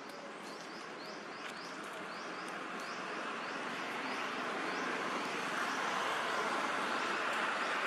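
A vehicle's steady rushing noise, growing louder throughout. A bird chirps about twice a second over it, fading out about halfway through.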